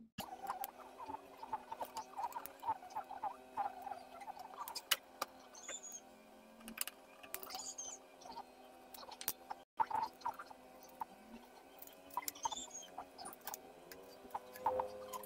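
Irregular small clicks, taps and scrapes of a screwdriver and fingers working on the metal chassis and power supply board of an LED TV as the board is unscrewed and freed, with faint high chirps a few times in the background.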